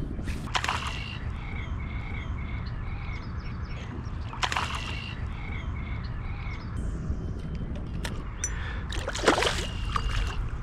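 River water sloshing around a kayak, with a few louder splashes about half a second in, midway and near the end. A bird gives a quick run of short chirps about two seconds in.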